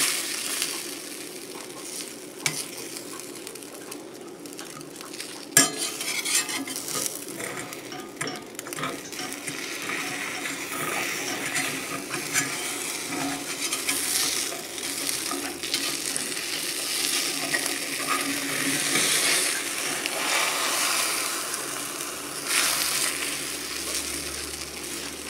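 Beaten eggs sizzling in a cast-iron skillet while a slotted spatula scrapes and pushes them around the pan. There are a couple of sharp knocks against the pan in the first few seconds.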